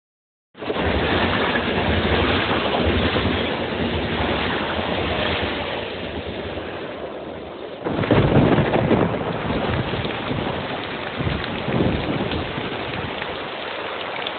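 A dense, steady rushing noise that starts abruptly, with a sudden louder, rumbling surge about eight seconds in.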